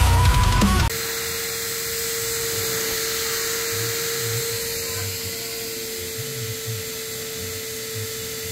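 Music cuts off about a second in, and a vacuum cleaner takes over, running steadily with a constant whine as its hose nozzle is worked over a fabric couch cushion.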